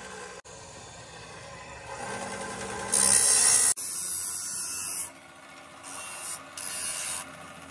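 Electric abrasive cut-off saw running with its disc spinning free, then a steel part pressed against the abrasive wheel in harsh grinding. The grinding starts about three seconds in and lasts about two seconds, then comes in two short bursts near the end.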